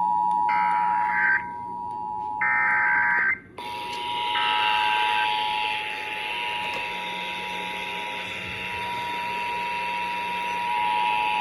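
Emergency Alert System attention signal: a steady two-tone alert at about 853 and 960 Hz, marking the start of a required monthly test. In the first few seconds two short bursts of higher-pitched digital header data screech over it, and the tone breaks off briefly about three and a half seconds in.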